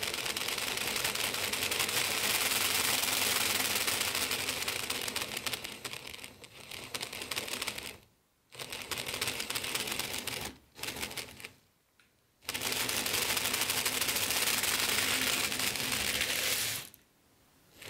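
Bachmann N-scale model train running on its track: a dense, rapid clicking rattle of the small wheels and motor, with a faint steady hum underneath. It cuts out abruptly a few times and then starts again.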